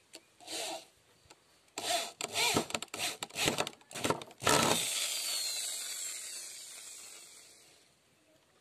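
Hand-held electric drill boring a hole into a hardwood chair rail in short stop-start bursts. The trigger is then released and the motor whines down, falling in pitch and fading over about three seconds.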